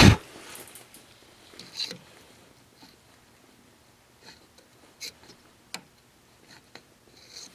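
A loud thump right at the start, then a stopped metal lathe with scattered small metallic clicks and taps as the cutting tool and carriage are handled by hand.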